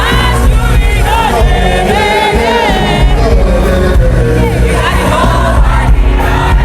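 Music with a lead voice singing a wavering, gliding melody over a steady, full backing.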